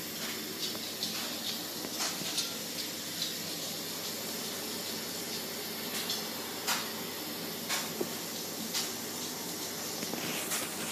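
Steady hiss of heavy snow falling, with scattered light ticks at irregular intervals, about one or two a second.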